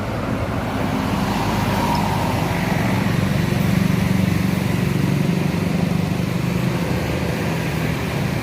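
Tour bus driving: a steady low engine drone with road noise, swelling over the first four seconds or so and then easing off slightly.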